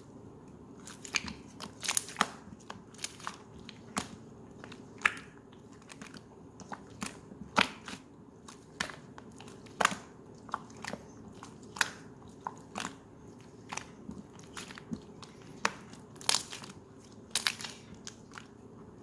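Slime being kneaded and pressed by hand, making sharp, irregular pops and clicks, about one or two a second, over a faint steady hum.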